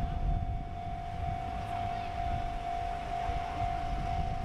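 Japanese railroad crossing warning bell ringing, a steady repeated electronic tone pulsing about twice a second, over a constant low rumble.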